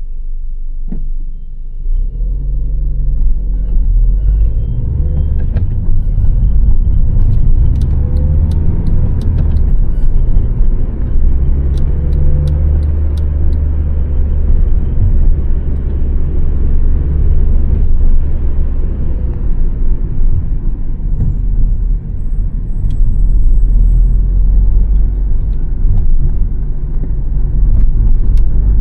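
A 2006 Honda Civic's 1.8-litre four-cylinder petrol engine and road noise while driving: a steady low rumble that grows louder about two seconds in, with scattered light ticks in the middle.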